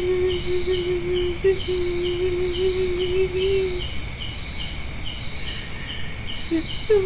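Night chorus of crickets and other insects: a steady high trilling, with one cricket chirping about twice a second. A steady, slightly wavering low hum sounds over it and stops about four seconds in.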